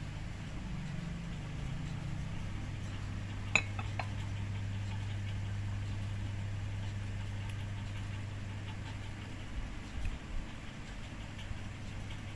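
A steady low mechanical hum like an idling engine. One sharp, ringing clink about three and a half seconds in, and a few soft knocks near the end.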